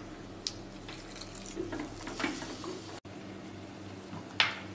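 Water poured from a glass into a clay pot of frying onion-tomato masala, to keep the masala from burning, with a few short splashes and one sharper, louder sound near the end.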